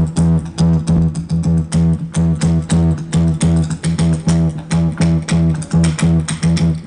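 Loud live band music from a stage PA, with electric guitar strummed in a fast, even beat over a steady low bass note.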